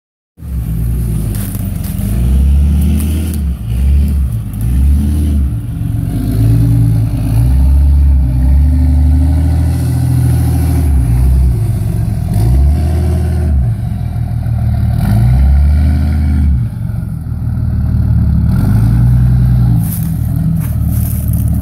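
Cummins straight-six turbodiesel of a lifted Dodge Ram pickup, revving up and down over and over as the truck works its way through deep mud ruts.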